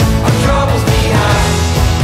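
Background music: a loud, steady pop-rock style track with a beat.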